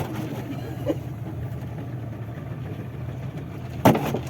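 A boat engine idling steadily with a low hum, with a sharp knock near the end.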